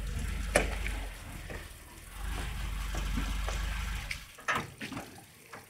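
A VAZ-2104's engine running low and steady as the car reverses slowly through puddles, with water sloshing under the tyres. The engine sound drops away about four seconds in, followed by a few sharp knocks.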